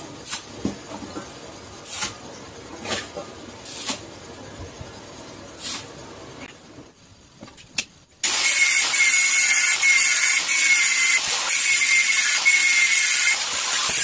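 A few separate sharp metal taps. Then, about eight seconds in, an electric angle grinder switches on and runs steadily with a high whine, grinding a weld on a steel tube frame.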